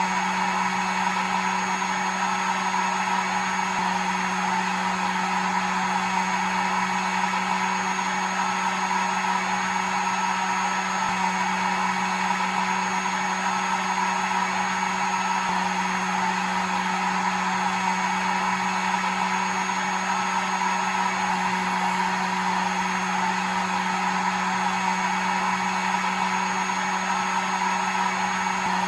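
Hair dryer running steadily: an unchanging rush of air over a constant low motor hum.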